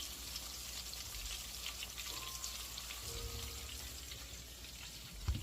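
Battered hen-of-the-woods mushroom pieces frying in hot oil: a steady, faint sizzle with fine crackles throughout. A soft low bump comes near the end.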